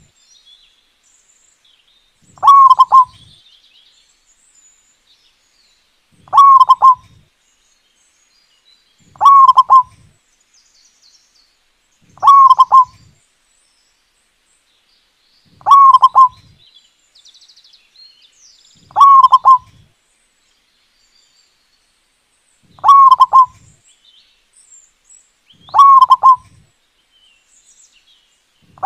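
Zebra dove (perkutut) cooing: a short, loud phrase repeated at an even pace about every three to four seconds, eight times. Faint chirps of small birds sound between the phrases.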